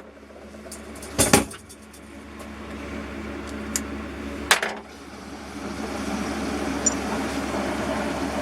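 Bench-top mini milling machine running with a steady low hum that slowly grows louder from about halfway through, with two sharp metal knocks, one about a second in and another about four and a half seconds in.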